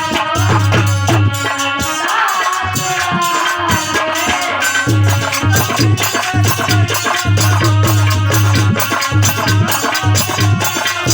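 Hindi devotional bhajan music, instrumental: a fast, even shaker rhythm and hand drums over a steady bass note, with a wavering melody on top.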